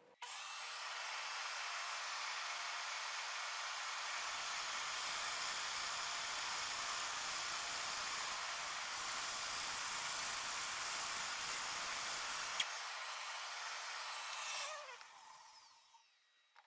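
Bandsaw running and cutting through a wooden block, starting abruptly. The cut grows louder with a high whine through the middle and peaks about twelve seconds in, then the saw fades away.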